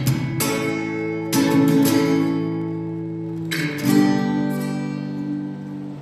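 Background music: an acoustic guitar strumming a few chords that ring out, fading near the end.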